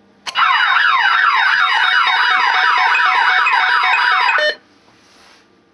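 Optima XM intruder alarm siren, set off by its panic (personal attack) button, sounding a loud, fast-repeating sweeping wail that starts just after the beginning and cuts off suddenly about four and a half seconds in.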